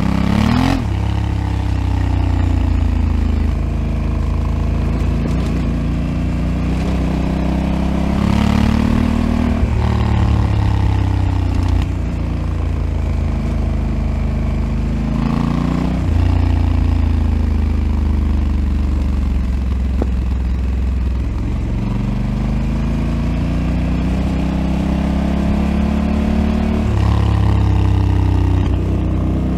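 Honda Africa Twin CRF1100L's 1084 cc parallel-twin engine running on its stock exhaust while riding. The engine note climbs steadily and drops back several times as the rider accelerates and changes gear.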